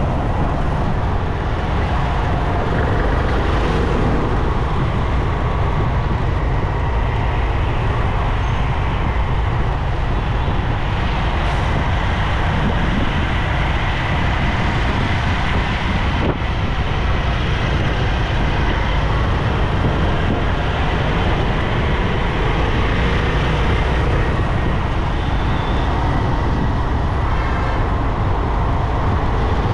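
Steady road noise from a motorcycle riding in highway traffic, with a heavy low rumble throughout.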